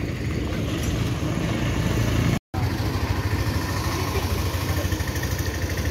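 Small Honda motorcycle engine idling with a fast, even putter, broken by a short moment of silence about two and a half seconds in.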